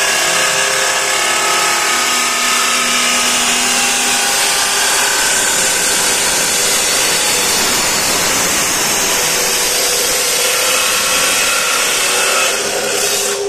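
Tien Dat F300 abrasive cut-off machine (2 HP, 220 V) cutting through metal: a loud, continuous grinding hiss with a steady motor tone under it. It gets a little quieter about twelve and a half seconds in.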